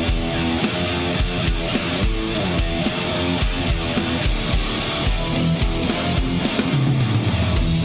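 Background rock music: electric guitar over a steady beat.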